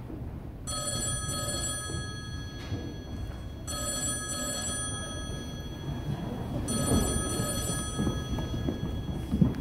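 A telephone ringing in about 2-second rings with short pauses, three rings in all.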